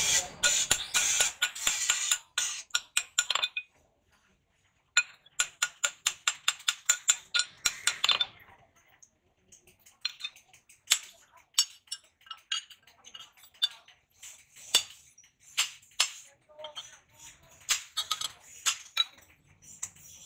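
Hammer blows on a steel axe head over an iron anvil: fast runs of ringing metallic strikes with a short pause about four seconds in, then slower, spaced blows.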